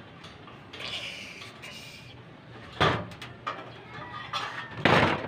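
Tin snips cutting a thin galvanized steel channel: a few short, sharp snips of metal, the two loudest about three seconds in and near the end.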